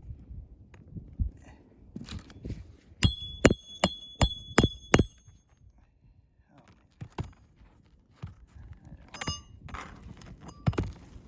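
Hammer driving roofing nails into an asphalt shingle: a quick run of about six sharp, ringing metal strikes, then a couple more strikes near the end, with scuffing and knocks on the shingles in between.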